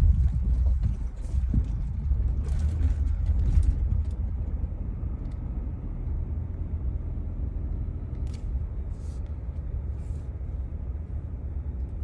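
Car driving slowly, a steady low rumble of engine and tyres heard from inside the cabin, a little louder in the first few seconds, with a few light clicks.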